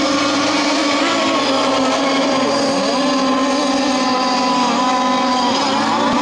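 Radio-controlled model racing boats running flat out, a steady, high-pitched engine drone with the pitch sliding down briefly a couple of times.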